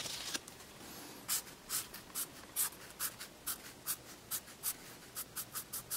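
Fine-point permanent marker drawing on paper: a run of short scratchy strokes, about two or three a second.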